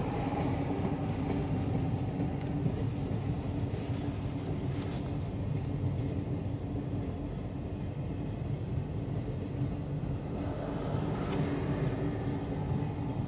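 Freight train of refrigerator cars rolling past: a steady rumble of steel wheels on the rails.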